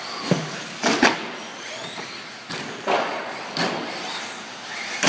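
Radio-controlled cars running on an indoor carpet track: a steady whirr with faint rising and falling whines, broken by several sharp knocks and clacks as the cars hit the track and its boards, the loudest about a second in.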